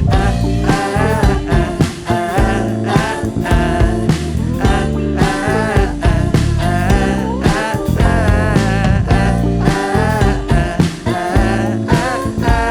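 A live band playing an upbeat pop song, with a wavering melodic lead line over drums and bass.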